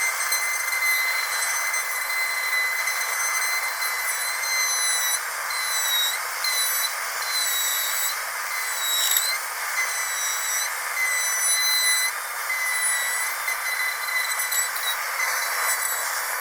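Dentist's drill whining steadily at a high pitch over a constant hiss, the pitch dipping briefly a few times.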